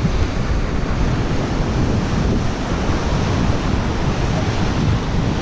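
Steady wash of small surf breaking on a sandy beach, with wind noise on the microphone.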